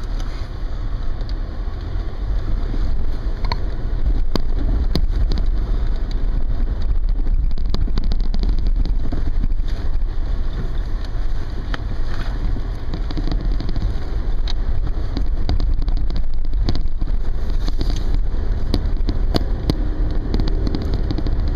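Steady low engine and road rumble inside a moving truck's cabin, growing a little louder over the first few seconds, with scattered small clicks and rattles.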